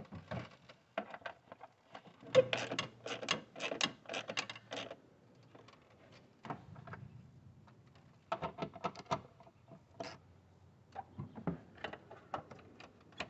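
Hard plastic engine-bay parts being handled and pressed back into place (the engine cover and air-intake housing): quick clicks and knocks in clusters. The densest run is about two to five seconds in, with more around eight to nine seconds and near eleven.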